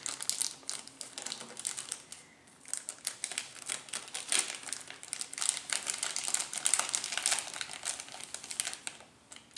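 Clear plastic wrapping crinkling and crackling as it is handled and pulled off a small jewellery box, in quick irregular crackles with a brief lull about two seconds in.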